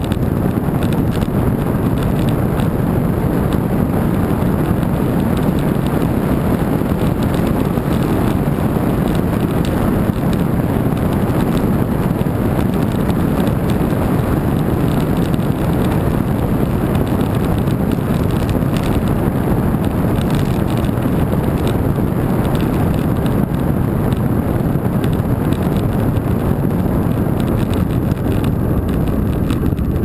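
Loud, steady wind rush on the microphone from riding a bicycle fast downhill.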